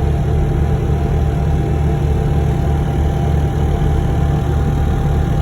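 A vehicle engine idling steadily, a constant low hum with no revving.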